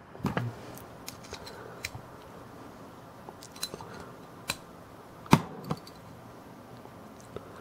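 Scattered small metal clicks and taps from a hand tool working at a Ronson lighter, the loudest about two-thirds of the way through.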